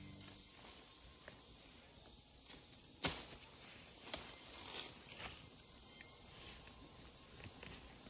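A steady, high-pitched drone of insects in a field, with two sharp clicks about a second apart, around three and four seconds in.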